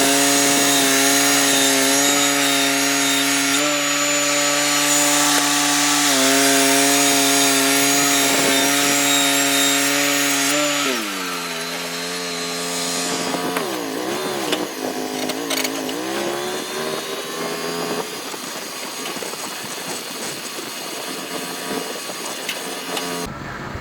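Sawmill's engine running steadily under load as the saw cuts through a log, with a hiss of cutting over it. About halfway through, the engine drops to a lower speed, wavers up and down for a few seconds, then runs on more quietly.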